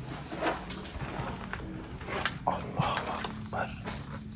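Crickets trilling steadily in the night, with a faster pulsed chirp of about five a second joining past halfway. A few soft knocks are heard among them.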